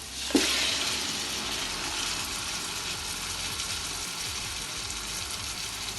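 Marinated chicken pieces tipped into a pot of hot ghee and oil, sizzling loudly at once and then settling into a steady hiss.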